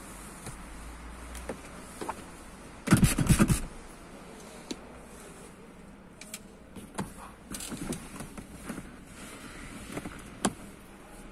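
Rattling clatter and knocks of a manual wheelchair and car seat being shifted against as a person transfers from the chair into a car: a loud burst of rattles about three seconds in, then scattered clicks and light thumps.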